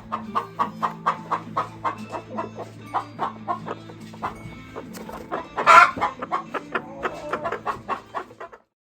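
Chickens clucking in rapid, fairly regular calls, about three to four a second, with one louder squawk a little before the 6-second mark. The sound cuts off suddenly near the end.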